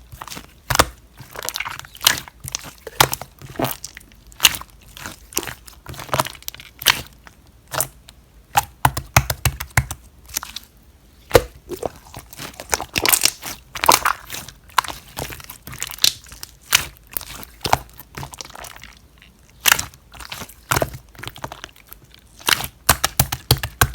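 Slime being squeezed and pressed by hand, giving off irregular sharp popping and crackling clicks as air pockets burst, in quick clusters with short pauses.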